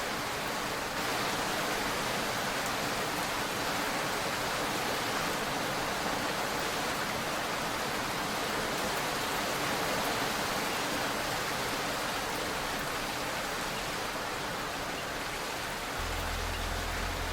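Heavy rain falling steadily as an even hiss, with no low rumble under it. A low rumble comes back near the end.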